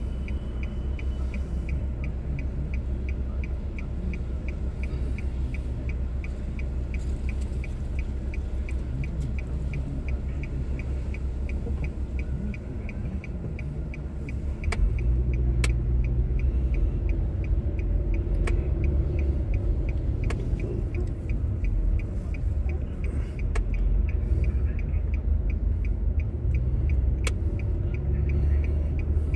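Car interior sound: a low engine rumble while stopped, with an even, rapid ticking. About halfway through the ticking fades and the engine and road noise grow louder as the car pulls away and drives on.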